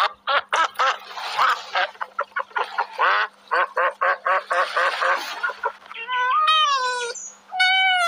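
Mallard ducks quacking in a rapid, chattering series. About six seconds in, two drawn-out, wavering whining calls follow.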